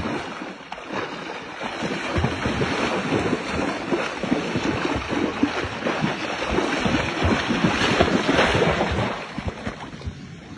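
A baby elephant running through shallow water, its legs churning up repeated uneven splashes, with wind buffeting the microphone. The splashing dies down near the end.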